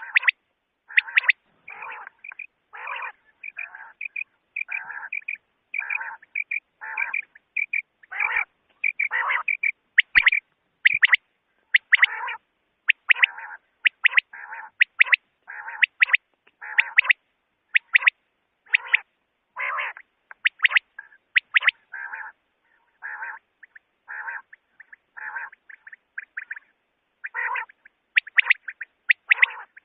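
Common quail calling: short, harsh calls repeated about one and a half times a second in a long series, with a few louder, higher double notes among them.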